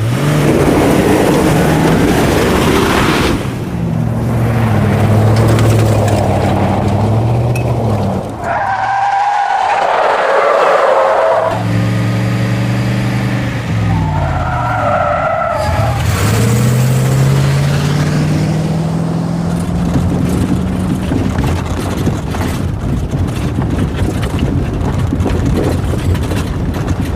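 Montage of car sound effects: engines revving and accelerating, rising and falling in pitch, with tire squeals twice about a third of the way in.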